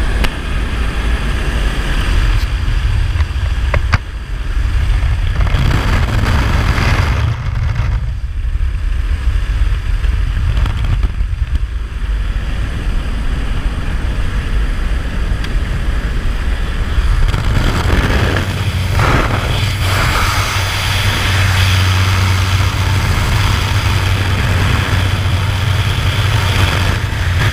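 Steady drone of a small jump plane's propeller engine heard from inside the cabin, with a rush of wind that grows louder in the second half as the door stands open.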